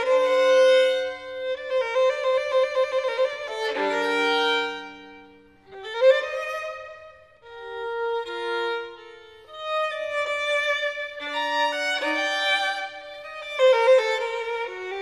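Violin music: a slow melody of long bowed notes, with several notes sounding together about four seconds in and again near the end.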